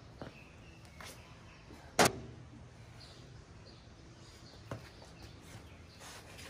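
A single sharp thump about two seconds in, then a softer knock near five seconds, over quiet room tone.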